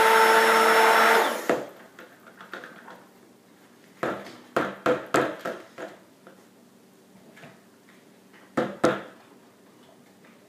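Stick blender running on high in soap batter in a plastic bucket, a steady whir with a hum in it that cuts off after about a second and a half. Then a scatter of sharp knocks, and two loud ones near the end, as the blender head is knocked against the bucket.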